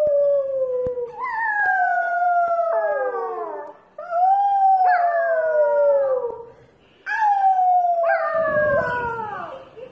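A puppy howling: a short howl, then three long howls that each slide downward in pitch, with brief pauses between them.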